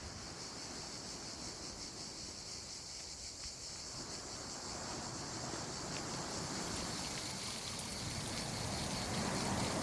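Steady high-pitched chirring of crickets, under a low rushing noise that grows louder toward the end.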